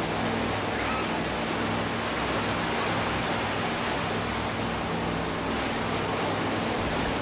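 Steady rush of water and spray along a wooden motor yacht's hull as she runs through choppy water. Under it is the even drone of her twin Chrysler V8 marine engines.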